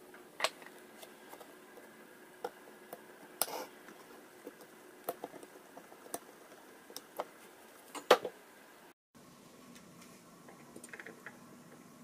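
Scattered light clicks and taps of small circuit boards and parts being handled on a workbench during soldering, the loudest a double click near the end, over a faint steady hum.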